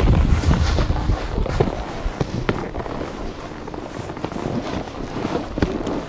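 Wind buffeting the microphone, heaviest in the first second, with irregular crackling, crunching and scraping of snowboards and boots on packed snow.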